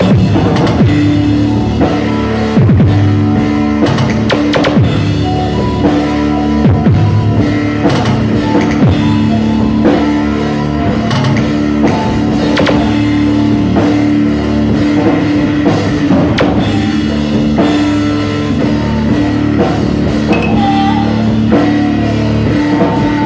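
Loud rock music played by a band: a drum kit keeping a steady beat under guitar, with the rough, poor sound of an amateur recording.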